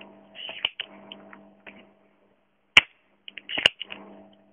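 Spring-loaded solder sucker (desoldering pump) being worked on a component leg: sharp snaps as the plunger is released, a loud one a little under three seconds in and another clustered with smaller clicks about a second later, with lighter clicks and scraping between. A faint hum comes and goes underneath.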